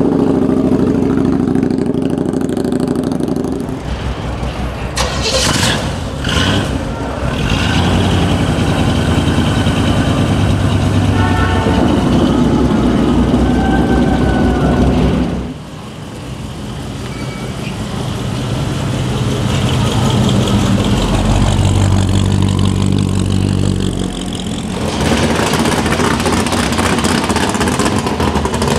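Loud V8 muscle-car engines running and revving as several cars pull away one after another; the engine note changes abruptly a few times, with a cluster of sharp blasts early on.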